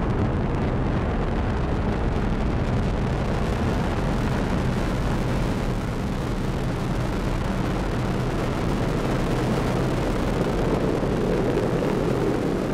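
Falcon 9 first stage with its nine Merlin engines at full thrust during ascent: a steady, loud, deep rushing rumble that holds even throughout.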